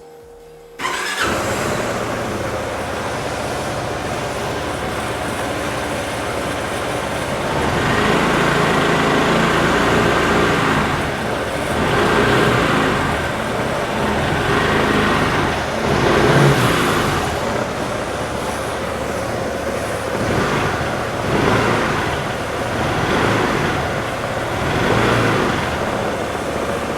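2017 Kawasaki J300 scooter's single-cylinder four-stroke engine starting about a second in and idling. From about eight seconds in it is revved in a series of short throttle blips. It cuts off near the end.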